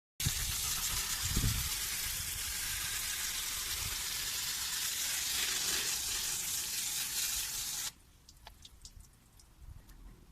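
Steady hiss of a water jet spraying, which stops abruptly about eight seconds in, leaving a few faint clicks.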